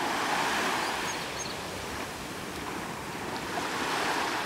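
Small waves breaking and washing up on a sandy beach. The surf swells, eases off in the middle, and swells again near the end.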